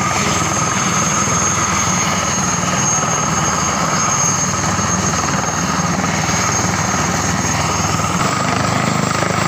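Helicopter running on the ground with its rotor turning: a steady high turbine whine over the low, steady thrum of the rotor. The highest whine fades out about eight seconds in.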